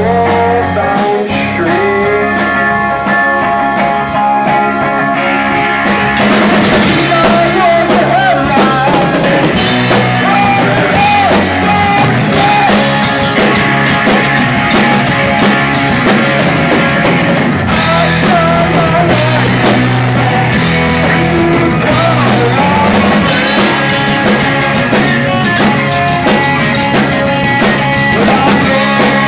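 Live rock band playing with electric guitars, bass, keyboard and drum kit. About six seconds in the sound fills out and gets busier, with a bending lead line running over the band.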